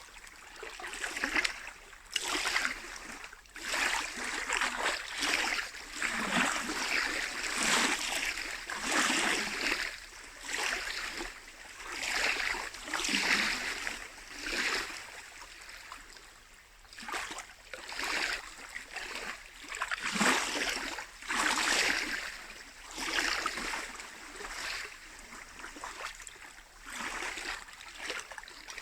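Small lake waves lapping and splashing against the shore, in a rhythm of swells about every one to two seconds.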